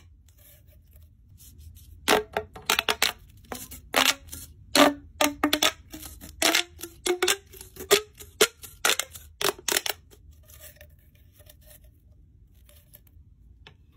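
Corrugated plastic pop tubes squeezed and stretched in the hands, their ridged sections snapping open and shut in a quick string of sharp clicks and pops. About two seconds in the popping starts; it thins to faint clicks for the last few seconds.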